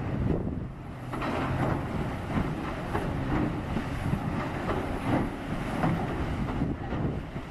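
Heavy snow-clearing machinery running: a steady low engine rumble with irregular knocks and clatter, and wind on the microphone.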